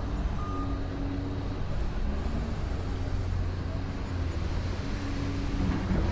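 RC wheel loader's sound module playing a simulated engine hum, with one reversing beep about half a second in, over a steady low rumble.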